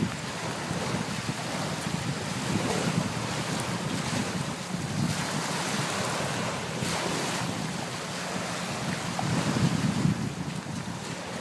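Small sea waves lapping on a pebbly beach, with wind buffeting the microphone.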